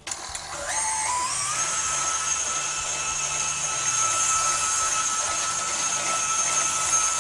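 KitchenAid Artisan stand mixer's electric motor switching on and driving the slicer/shredder attachment, its whine rising in pitch over the first second or so and then running steadily.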